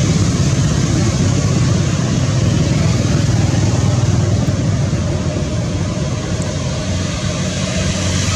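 A steady low engine-like hum with continuous hiss over it, easing slightly a little past the middle.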